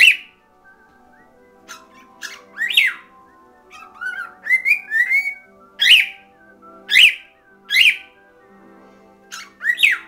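Cockatiel whistling and calling over quiet music from a stereo speaker: a string of loud, sharp calls about once a second, with two rising whistles around the middle.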